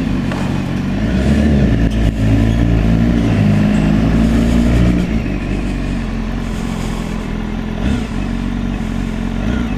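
BMW S1000RR's inline-four engine under way, pulling harder with its pitch rising and falling for the first few seconds, then running steadier and a little quieter.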